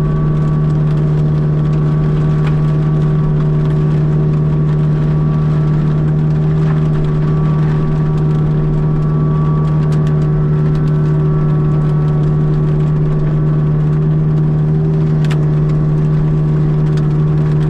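Kubota U55-4 mini excavator's diesel engine and hydraulic mulching head running at a steady pitch, heard from inside the cab.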